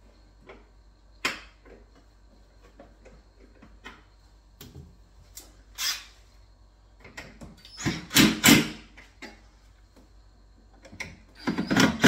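Makita cordless driver run in a few short bursts, turning the wall cabinet's hanging-bracket adjuster screw that raises or lowers the unit to level, among clicks and knocks of handling the cabinet.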